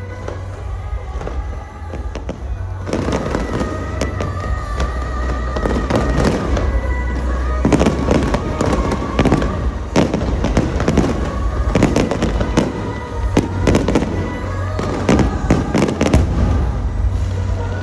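Aerial fireworks going off in quick succession, sharp bangs and crackling that grow dense from about three seconds in, with music playing alongside.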